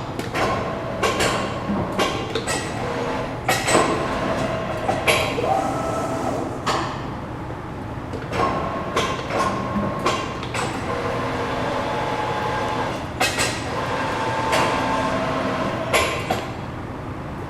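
Schechtl MAB310 CNC folder cycling through a bending program dry, with no sheet metal in it: machinery running with repeated clunks and knocks as the beams move from stage to stage, and a brief whine now and then.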